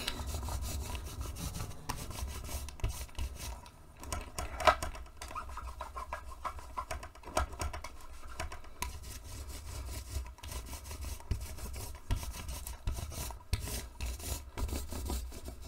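Stiff round stencil brush scrubbing and dabbing paint through a stencil onto fabric: irregular scratchy rubbing strokes with small taps, over a steady low hum.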